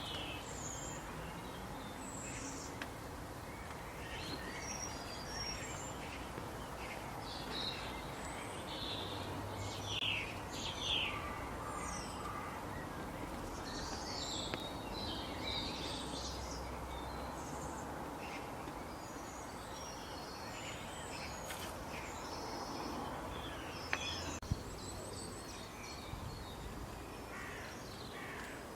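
Several birds chirping and calling in short, scattered notes over a steady outdoor background hiss, with two sharp ticks about three-quarters of the way through.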